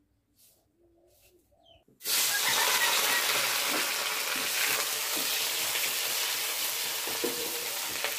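A pigeon cooing faintly. About two seconds in, sliced onions start sizzling loudly in hot oil in a wok, with light knocks of a spoon stirring them.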